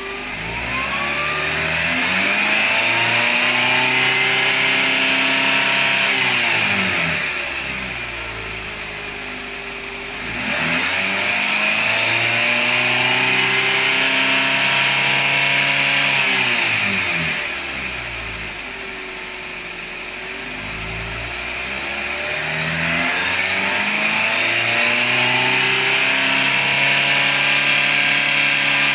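Nissan MR20DE 2.0-litre four-cylinder petrol engine revved up and held at high revs three times, dropping back toward idle between each rise.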